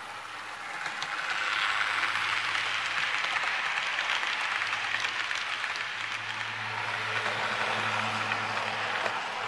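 HO-scale model passenger train rolling past, its small metal wheels rattling on the track with a steady rushing noise that swells about a second in, over a low steady hum.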